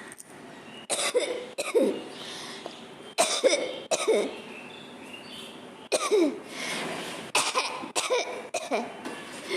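A person coughing deliberately, about ten harsh coughs in bunches of two or three with short pauses between.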